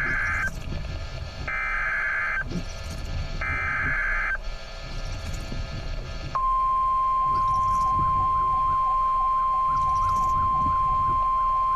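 NOAA Weather Radio emergency alert: the tail of the first and then two more short, harsh digital SAME header bursts about two seconds apart, encoding the flash flood warning. A little past halfway the steady 1050 Hz NWR warning alarm tone starts and holds.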